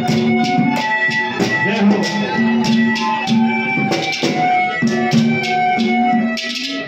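Live ragini folk-band music: an instrument holds sustained melodic notes over a steady percussion beat of short jingling hits, about two to three a second.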